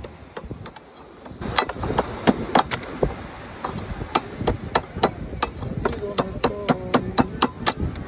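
Oyster shells being hacked open with a metal cleaver against a steel plate: a run of sharp knocks that starts about a second and a half in and comes faster near the end.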